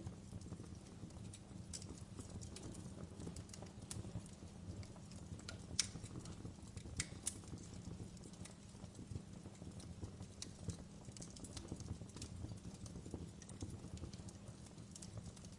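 Wood fire crackling in a fireplace: a low steady rumble of burning under scattered small snaps and clicks, with a sharper pop about six seconds in and another just after seven seconds.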